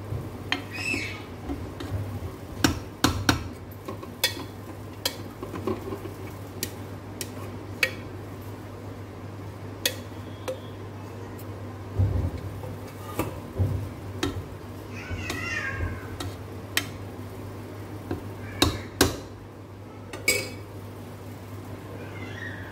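Metal spoon clicking and scraping against a cooking pot as rice is spread in layers, over a steady low hum. A few short, high gliding cries are also heard.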